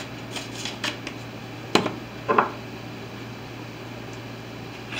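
Small clicks and taps of a spice bottle's lid being worked open, with a sharper click a little under two seconds in and a short rustle just after, over a steady low hum.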